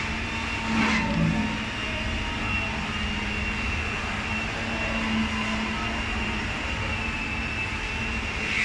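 Steady drone of workshop machinery: a low hum with a thin high whine above it. A brief louder sound about a second in.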